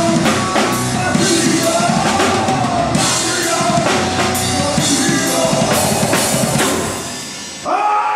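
Live horror-punk/metal band playing loud, with a pounding drum kit under distorted guitars. The music dies down about seven seconds in, and shouting and cheering from the crowd break in near the end as the song finishes.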